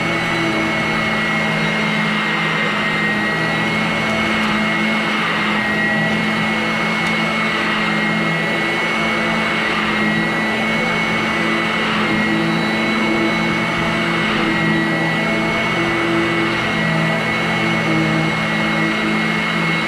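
Vacuum cleaner running steadily, its motor giving a high whine over an even hiss of air.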